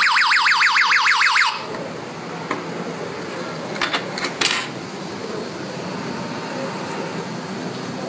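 A6 GSM alarm system's siren sounding a loud, rapid warble of repeated rising sweeps, which cuts off suddenly about a second and a half in. A few light clicks follow around four seconds in.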